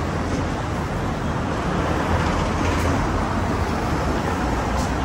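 Steady city street traffic: road vehicles running past with a continuous low rumble.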